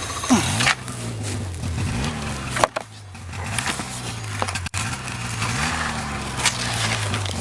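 Snowmobile engine running, its pitch rising and falling as it revs several times, with a sharp knock about two and a half seconds in.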